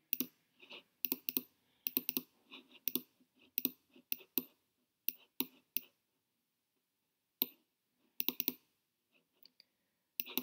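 Computer mouse clicks, many in quick pairs, with a pause of about a second and a half past the middle before another burst of clicks.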